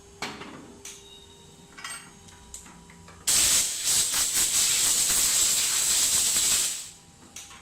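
A few light knocks, then about three seconds in a pressurised spray hisses steadily for about three and a half seconds before cutting off. It is a blast of compressed air or cleaner spray used to clean the shaft end of a CNC router spindle.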